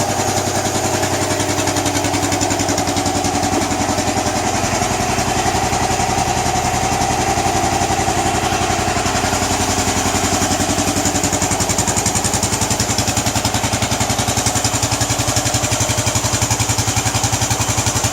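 Royal Enfield Bullet 500's cast-iron single-cylinder four-stroke engine idling with an even, steady thump.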